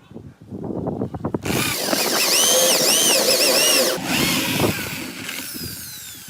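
A handheld power tool, a drill by the tags, runs with a whine that rises and falls in pitch, then winds down. It starts about a second and a half in, after a few seconds of knocking and clatter from handling.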